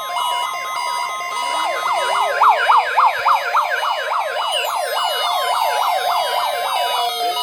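Several electronic siren and alarm tones sounding together. A fast yelp sweeps up and down about four times a second over a steady alarm tone, a slower wail rises from about a second in, and high tones glide downward from about halfway.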